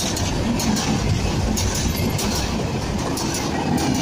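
Intercity passenger train coaches rolling past close by: a steady rumble of steel wheels on rail, with clacks at uneven intervals.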